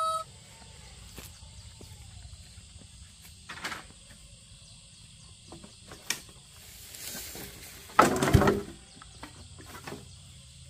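A rooster's crow ends right at the start. Then come scattered light knocks and rustles, with a louder rough scraping rustle about eight seconds in.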